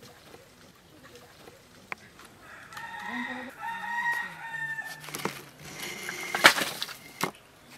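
A rooster crows: one long call from about three seconds in to about five. Near the end the loudest sound is a brief dry rustle and crackle of bundled dry palm fronds being handled and set down.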